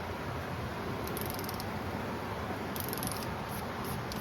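Hand ratchet clicking in short bursts as a bolt is run in, over a steady background hiss.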